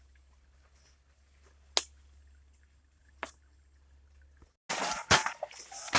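Walking through forest undergrowth: two sharp twig snaps, then about three-quarters of the way in a sudden loud rush of leaves and branches brushing against the microphone, with several cracks.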